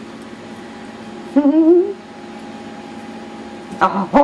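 A woman's short wordless cooing sound, rising and wavering in pitch, about a second and a half in, over a steady low room hum; another brief vocal sound starts just before the end.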